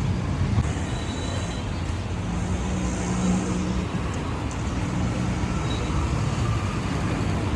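Street traffic noise: motor vehicles running on a busy road, with a steady low engine hum.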